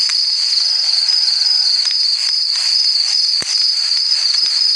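Insects chirping in a dense, steady, high-pitched chorus, with a faint tap or two near the middle and end.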